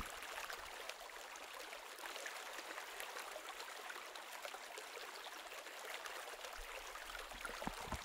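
Shallow mountain creek running and trickling over stones: a steady, faint water sound.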